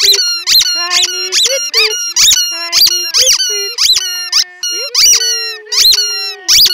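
A dog chewing an orange rubber squeaky toy, setting off rapid high-pitched squeaks, about three a second.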